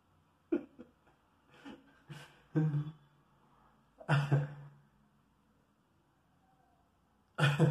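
A man's short non-word vocal sounds: several brief bursts with pauses between, the loudest about four seconds in and just before the end.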